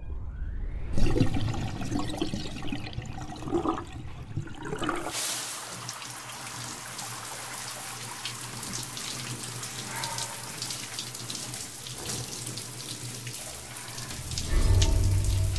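Shower running: water spraying down steadily onto a person's head and body, with fine spattering. The spray comes in suddenly about five seconds in. A low rumble joins near the end.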